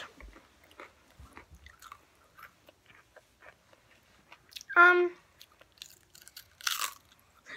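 Crunchy snack chips, a Dorito and a barbecue potato chip, being bitten and chewed close to the microphone: a run of faint, short crackles. A brief voice sound about five seconds in and a breathy puff near the end.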